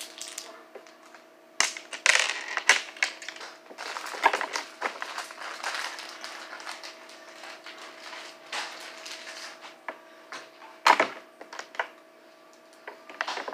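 Irregular clicks, taps and crackling rustles of hands handling small objects, with a louder cluster about two seconds in and a sharp knock near the end, over a faint steady hum.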